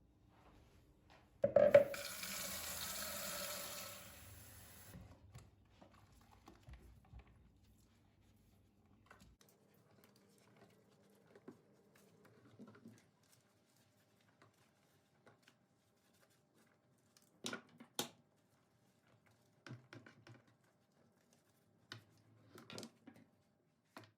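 Kitchen tap water running for about three seconds, starting with a knock and then stopping, followed by scattered light clicks and knocks of things being handled.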